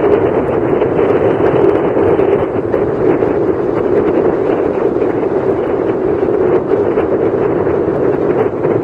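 Steady rush of airflow buffeting the microphone of a camera carried on an aircraft in flight, with no clear engine or motor note.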